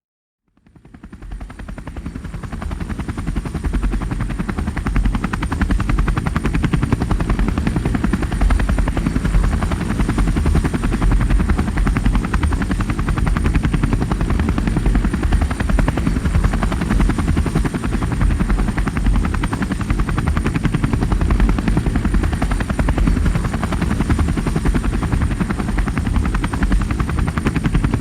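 Helicopter rotor and engine running steadily: a dense, low, fast chop of the blades with a thin steady high tone above. It fades in over the first few seconds.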